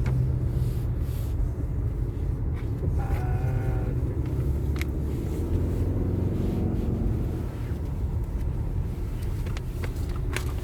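Steady low rumble of a car driving, engine and road noise heard from inside the cabin. A brief voice sounds about three seconds in.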